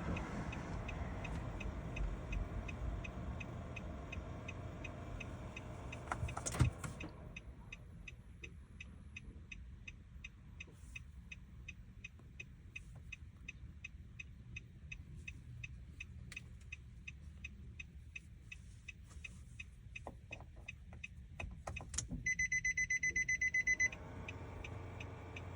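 Steady ticking from a car's indicator (turn-signal/hazard) relay, about three ticks a second, with one louder click about six seconds in. Near the end a rapid electronic beeping lasts about two seconds.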